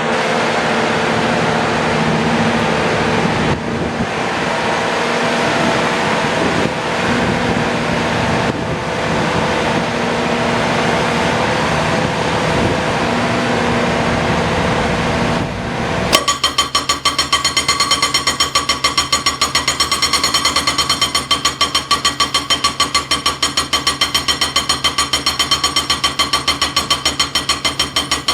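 A22 hydraulic breaker on test: a steady, loud machine noise for the first half, then just past the middle the breaker starts hammering, a fast, even run of metallic blows with a ringing tone that carries on to the end.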